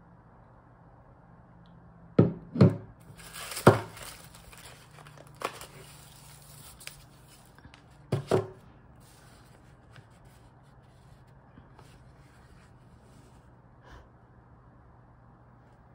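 Unboxed items handled on a tabletop: a plastic pump bottle and small cardboard boxes knocking as they are picked up and set down, three knocks in the first four seconds and two more close together about eight seconds in. A brief crinkle of paper packaging sounds among the first knocks.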